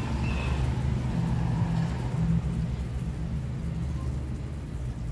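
Low, steady hum of an engine running, like an idling motor vehicle.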